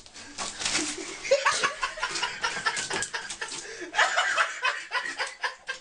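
A person chuckling and snickering, mixed with many quick scraping and knocking noises.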